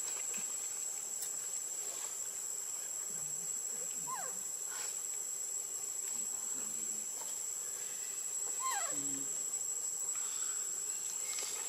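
A steady high drone of insects, with a baby monkey giving two short falling cries about four and nine seconds in.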